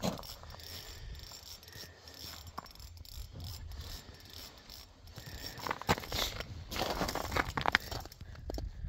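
Spinning reel on an ice-fishing rod ratcheting and clicking as line is worked against a hooked fish. It is faint at first, with clustered bursts of clicks from about six to eight seconds in.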